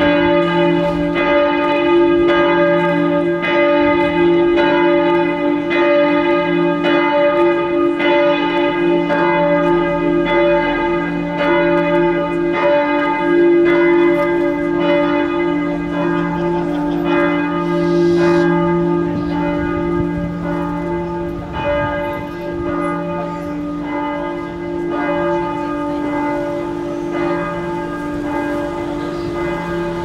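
A large church bell ringing steadily, struck about once a second, each stroke ringing on into the next.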